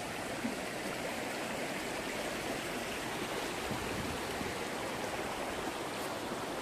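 River water rushing steadily, an even wash of noise with no break.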